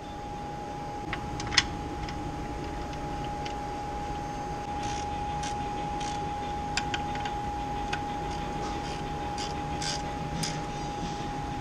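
Small sharp clicks and taps of the oil drain plug and its new seal being handled and threaded back into the oil pan by hand, one louder click early and a scatter of light ticks later. A steady high hum runs underneath.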